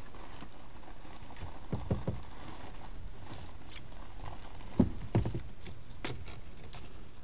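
A few soft knocks and taps from a kayak and its paddle, a pair about two seconds in and the loudest pair close together about five seconds in, over a steady faint hiss.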